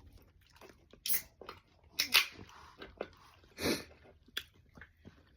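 A person's throat making several short, sharp catches about a second apart, two of them close together about two seconds in and a slightly longer one near the end, as in gulping a drink or hiccuping.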